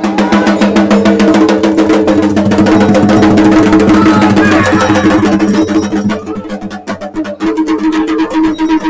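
Traditional temple band: drums beaten with sticks in a fast, dense rhythm over a steady drone from long brass horns. The horn drone drops away for about a second around six seconds in, then comes back.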